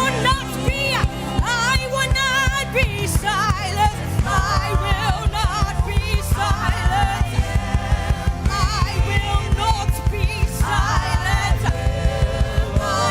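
Live gospel worship music: singers over a band with a steady bass and a quick, regular drum beat.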